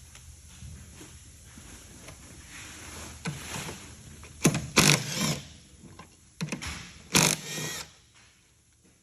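Small handheld power tool whirring in a few short bursts, among quieter handling noise.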